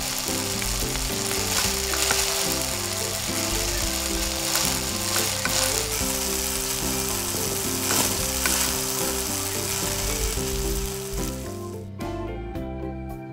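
Food sizzling as it fries on a miniature tawa, a steady crackling hiss that stops about a second before the end.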